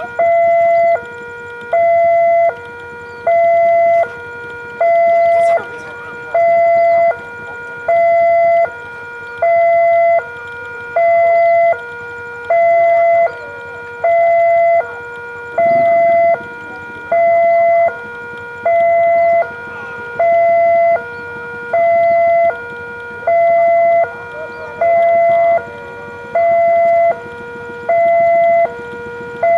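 Electronic two-tone railway level-crossing warning alarm sounding for an approaching train, steadily alternating a louder high tone and a lower tone, one high-low cycle about every second and a half.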